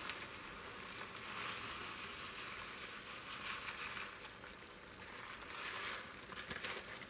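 Ground beef sizzling as it browns in a skillet, a steady crackling hiss.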